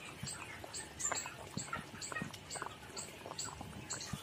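Fish curry boiling hard in an open pan, bubbling with scattered small pops. Behind it, a high chirp repeats about three times a second.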